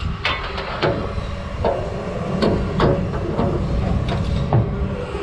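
Truck engine rumbling steadily, with about eight sharp clicks and knocks scattered over it.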